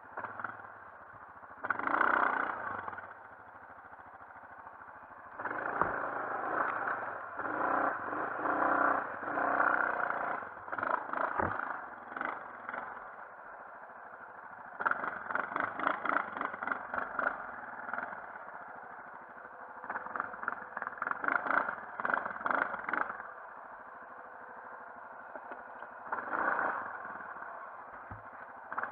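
Yamaha Grizzly 450 ATV's single-cylinder four-stroke engine running, revved repeatedly in bursts of one to five seconds and dropping back to a quieter run between them.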